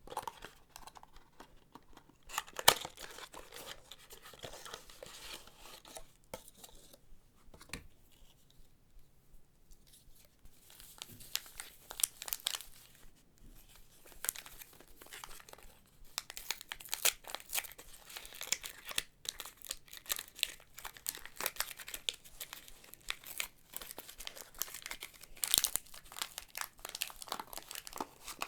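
Soap wrapping being torn open and crinkled by hand: steady rustling with sharp crackles, one loud snap about three seconds in, and a quieter lull around eight to ten seconds.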